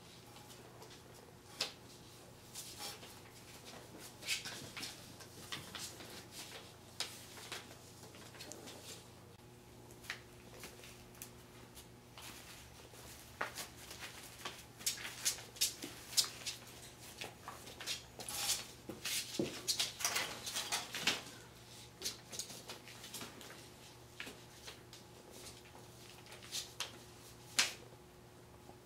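Puppies playing on a hard floor: irregular light taps, scuffles and knocks, busiest about halfway through.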